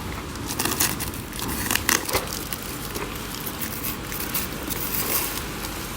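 Plastic parcel packaging crinkling and rustling in irregular crackles as it is handled and unwrapped.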